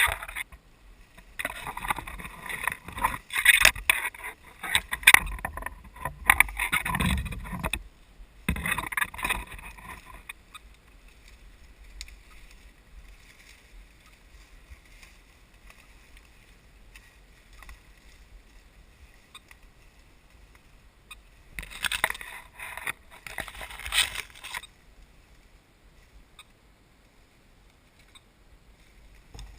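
Rustling and crackling of leaves and branches as a person pushes through thick woodland brush, in irregular bursts during the first ten seconds and again for a few seconds near the end, with a quieter spell between.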